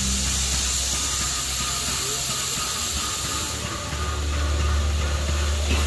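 Steam locomotive blowing off steam: a steady hiss, with a low rumble underneath.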